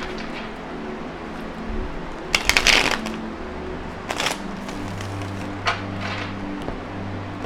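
Tarot cards being shuffled: a quick riffle of about half a second some two and a half seconds in, then a shorter rustle of cards about four seconds in.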